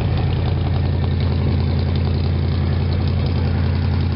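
Oldsmobile 403 V8 in a 1957 GMC/Wayne bus idling steadily through its unfinished dual exhaust.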